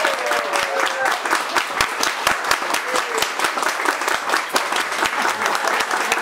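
Audience applauding with dense, steady clapping. A voice's held note glides down and fades out about a second in.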